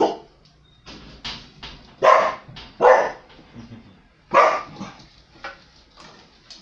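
Border collie barking at close range: four loud barks about a second apart, with softer barks between them. These are the warning barks of a dog guarding its resting place against a person it takes for an intruder.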